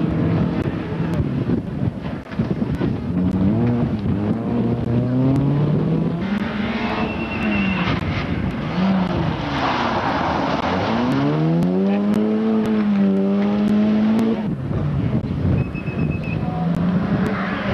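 Rally cars driving past one after another at full throttle, their engines rising in pitch and dropping back at each gear change.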